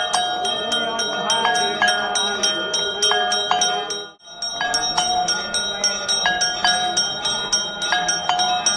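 Brass hand bells rung rapidly, struck several times a second so their tones ring on continuously, over devotional aarti music. The sound drops out briefly about four seconds in.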